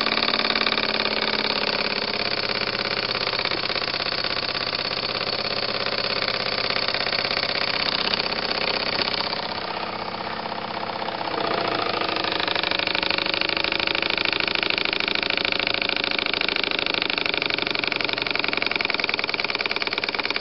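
Homebuilt double-acting oscillating steam engine running fast and unloaded, its exhaust chuffing in a rapid steady beat. It goes briefly quieter around the middle, then picks up again.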